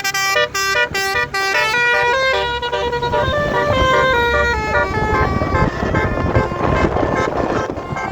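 Indonesian bus 'telolet' (basuri) musical horn playing a tune: a rapid run of short toots in the first couple of seconds, then a melody of held notes stepping up and down. A noisy rumble builds up underneath through the second half.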